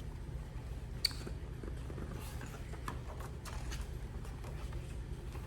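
Quiet room with a steady low hum and a few faint scattered clicks and taps, the clearest about a second in.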